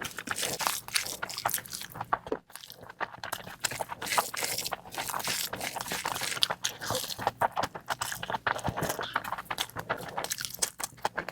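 Close-miked eating: a person biting and chewing food with many small sharp mouth clicks and smacks throughout.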